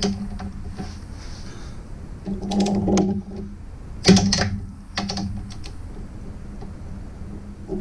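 Socket ratchet clicking in short runs as its handle is swung back and forth to run down a sway bar mounting bolt, the loudest a sharp clack about four seconds in, over a steady low hum.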